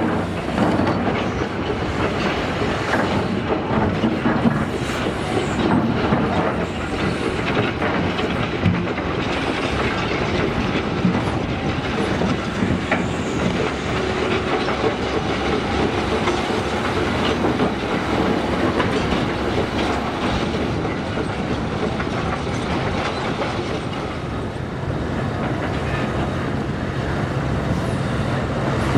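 Komatsu PC1250SP hydraulic excavator working under load: its diesel engine runs while rock clatters in the bucket and spills into the steel bed of a Cat 777F haul truck. A steadier low engine drone comes up near the end.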